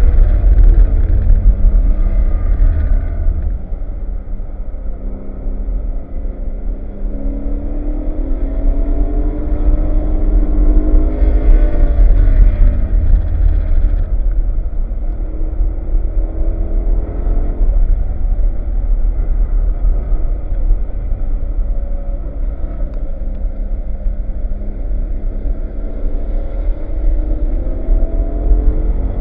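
BMW E92 M3's V8 engine under hard driving, its pitch climbing and dropping again and again as it accelerates and lifts off, over a steady low rumble.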